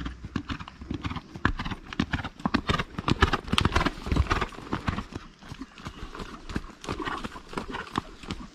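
Hoofbeats of a grey horse moving at pace on sand: a quick, uneven run of dull thuds that grows louder as the horse passes close, then thins out as it moves away.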